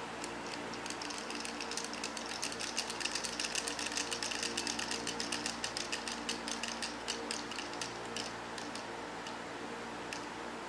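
Red plastic Q-Babylon Tower fidget spinner spinning down: a rapid run of plastic clicking that slows and thins out as the spin dies, stopping about nine seconds in, with one last click after.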